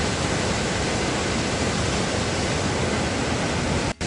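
Swollen river in flood pouring over a weir: a loud, steady rush of water, the river overflowing. It breaks off for an instant near the end.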